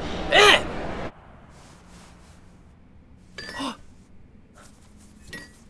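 Busy background noise with a loud, short sound falling in pitch just before it cuts off, about a second in. Then a quiet room with a few short, breathy voice sounds.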